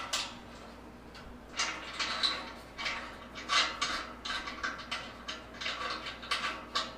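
Metal parts of a stainless steel honey extractor clinking and scraping in short, irregular bursts as its nuts and fittings are handled.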